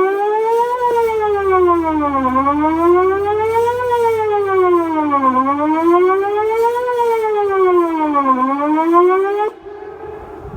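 Outdoor emergency warning siren sounding a wail, its pitch rising and falling about once every three seconds. It cuts off suddenly at the top of a rise near the end.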